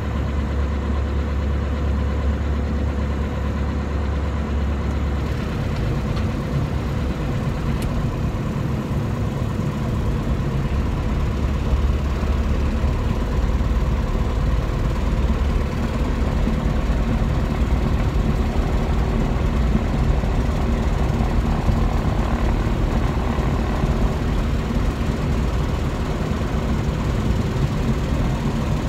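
Diamond DA40 light aircraft's engine and propeller running steadily at low power, heard inside the cockpit as the plane rolls out and taxis after landing. It grows slightly louder from about twelve seconds in.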